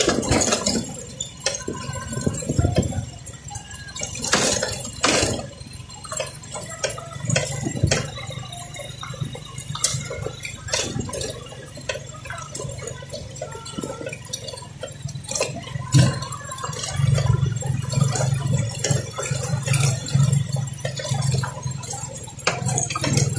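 Motorcycle riding over a rough gravel road: loose stones crackling and knocking under the tyres, with the engine's low hum underneath, which grows louder about seventeen seconds in.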